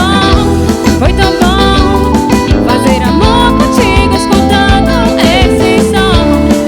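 Band music in the Pará melody (brega) style: electric guitar lines with gliding notes and singing over a steady beat.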